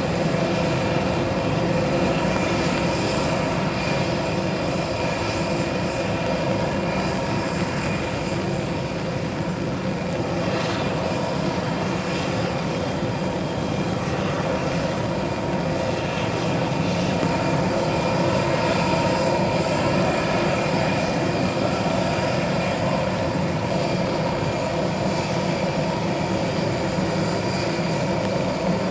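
Airbus A320neo's Pratt & Whitney PW1100G geared turbofan engines running steadily, a constant jet noise with several steady whining tones in it.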